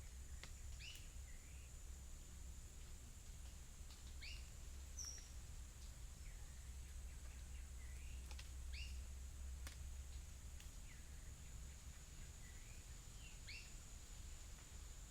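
Faint natural soundscape of birds giving short two-note chirps every few seconds, with a few other brief calls, over a steady high-pitched drone and a low rumble.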